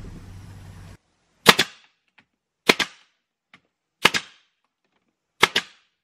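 Brad nailer driving nails into pine trim: four sharp double cracks, a little over a second apart.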